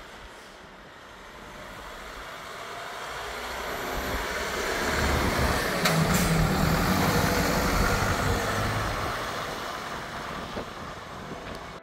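Mercedes-Benz Unimog U 5023 expedition truck driving past: its four-cylinder diesel engine and tyres grow louder, are loudest about halfway through as it passes, then fade away. A brief click sounds as it goes by.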